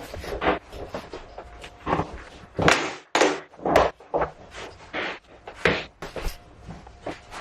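Irregular knocks, thuds and short scrapes from handling and working cork flooring planks, several sharp hits among them.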